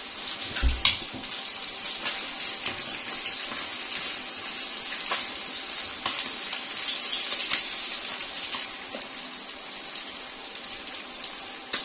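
Fish pieces sizzling steadily in hot frying oil, with a few clicks and knocks of a utensil against the pan as the fried pieces are lifted out, the heaviest knock about half a second in.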